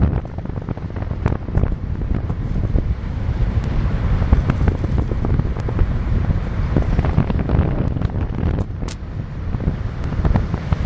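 Wind buffeting the microphone of a camera moving along a road: a heavy, uneven low rumble with scattered sharp clicks and rattles.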